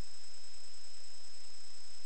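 Steady electronic hiss with a thin steady high whine and a low hum, unchanging throughout: the sewer inspection camera's recording noise, with no other sound.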